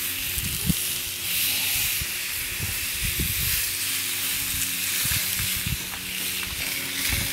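Raw ribeye steaks sizzling on aluminum grill grates over a charcoal fire at about 625–650 degrees, a steady high hiss as the meat sears. A few soft low thumps come as more steaks are set down.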